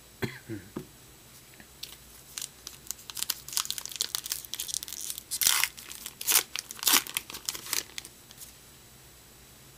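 Retail trading-card pack wrapper being torn open by hand, a run of ripping and crinkling over about six seconds, loudest in the middle.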